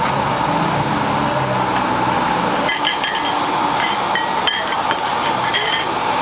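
Steady traffic hum, then from about three seconds in, glass tumblers clinking against each other again and again as they are handled in a wire basket.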